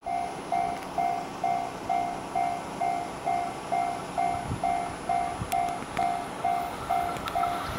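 Japanese railway level-crossing alarm ringing, a single-pitched electronic clang repeating about twice a second, over the low rumble of an approaching EF66 electric locomotive and its container freight train.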